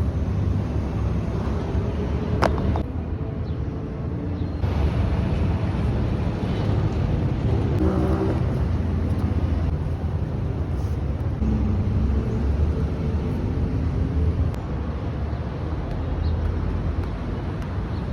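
Nike Lunar Gato II futsal shoes moving on a court, with a sharp rising squeak about two and a half seconds in and a short pitched squeal around eight seconds, over a steady low rumble.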